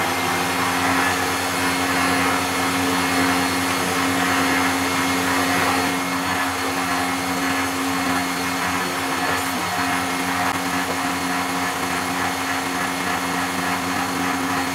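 Electric stand mixer running at speed 2, mixing flour for pizza dough, with a steady, even motor hum.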